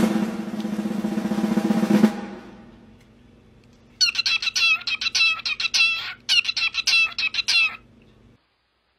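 A cockatiel calling in quick, rhythmic runs of high chirps, starting about four seconds in and stopping shortly before the end. Before it, a loud unidentified sound with a low hum starts suddenly, lasts about two seconds and fades away.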